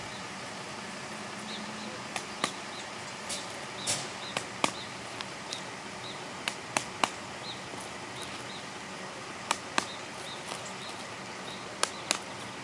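About a dozen sharp, irregular taps and clicks of a hand tool working at the base of an ash trunk as injection plugs are set in drilled holes. Faint bird chirps sound in the background over a steady hiss.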